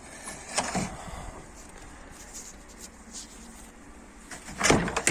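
Handling noises in a car's boot: scattered knocks, clicks and scrapes of plastic trim being moved, with a louder knock and scrape near the end.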